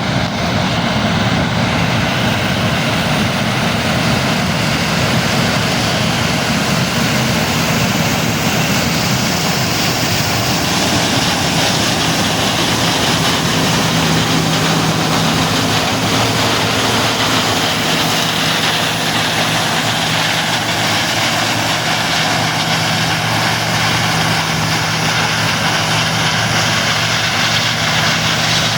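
Combine harvester running steadily while harvesting corn: a constant, dense mechanical noise with a low hum that grows stronger about halfway through.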